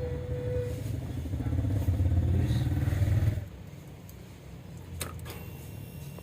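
Honda Scoopy's small single-cylinder scooter engine running, rising a little in level, then cut off abruptly about three and a half seconds in. A single click follows a moment later.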